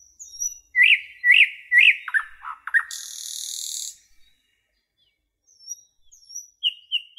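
Small birds chirping in quick whistled notes, some rising and falling, some dropping sharply. About three seconds in comes a second-long high hiss, and a few short chirps return near the end.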